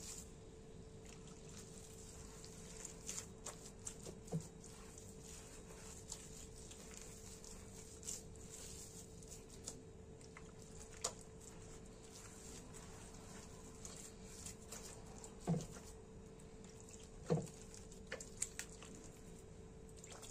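Hands working a crumbly mix of barley flour and homemade leaven in a glazed clay dish: faint scattered rustles and small ticks, with a few louder short knocks. A faint steady hum runs underneath.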